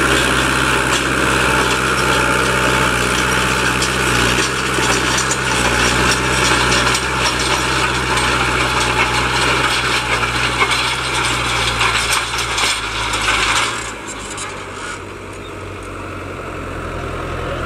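Fiatagri 80-90 tractor's diesel engine running steadily under load while pulling a five-tine subsoiler through dry ground, with a continuous clatter and scraping from the working implement and the soil. The sound drops noticeably about fourteen seconds in.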